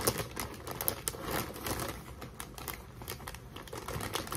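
Funyuns snack bag crinkling as a hand rummages inside it for an onion ring: a dense run of short, crackly clicks.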